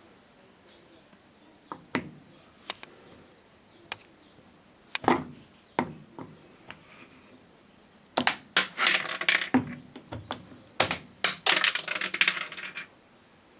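Hands working on a washing machine's plastic panel parts: scattered sharp clicks and knocks, then a dense clatter of clicking and rattling from about eight seconds in.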